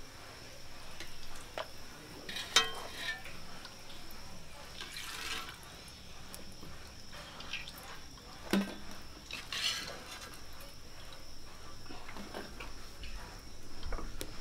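Pooris deep-frying in hot oil in a steel kadhai: a steady sizzle that swells into louder hissing twice as they are turned and lifted out, with a few sharp metal clinks of a steel slotted spoon against the pan and plate.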